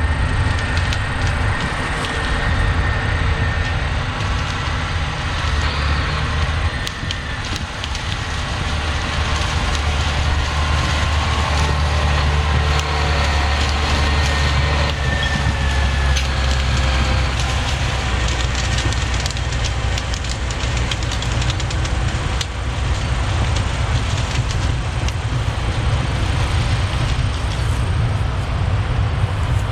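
John Deere 780 combine running steadily while harvesting corn: a continuous low engine drone with the rattle of the threshing machinery on top, the drone swelling for several seconds near the middle.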